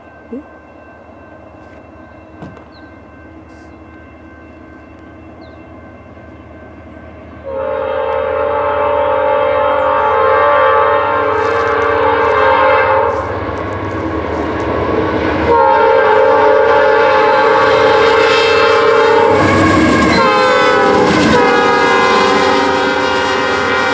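Norfolk Southern diesel locomotives on a loaded coal train sounding their air horn as they approach a grade crossing. The horn is faint at first, then blasts loud about a third of the way in, eases off briefly, and sounds again. Its pitch drops as the locomotives pass close by near the end, over the low rumble of the engines and the wheels on the rail.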